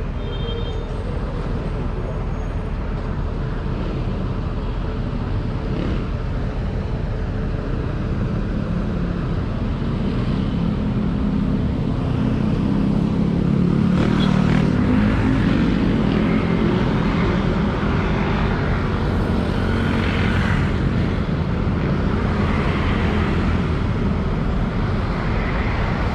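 Road traffic: a steady rumble of passing motor vehicles, growing louder around the middle.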